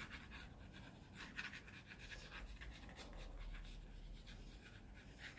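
Faint scratching of a graphite pencil on drawing paper in many short, quick strokes, sketching in hair.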